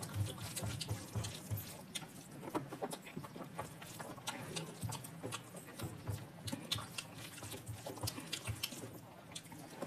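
Someone eating close to the microphone: chewing with many short wet clicks and lip smacks, irregular and several a second.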